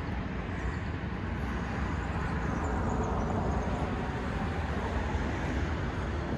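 Road traffic noise: a steady rumble of passing vehicles that swells a little in the middle as one goes by.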